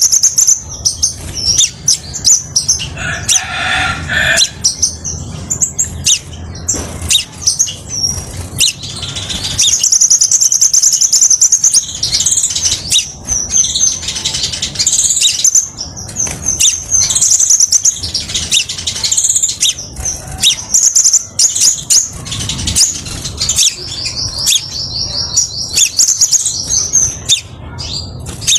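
Crimson sunbird (kolibri sepah raja) singing: a steady stream of high-pitched chirps and twitters, breaking into fast, even trills about ten seconds in and again near the end.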